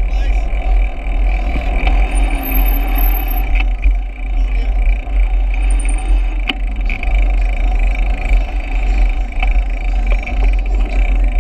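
Wind buffeting and road rumble on the microphone of a camera riding along on a moving bicycle, steady throughout, with one sharp click about six and a half seconds in.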